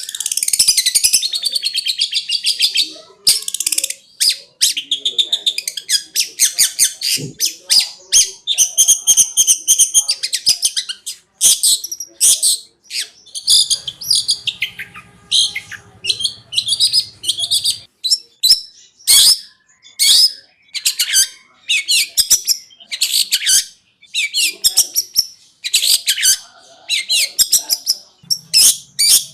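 Long-tailed shrike (cendet) singing a loud, fast song of short, high, chattering notes in quick broken phrases, the rapid erratic "konslet" style.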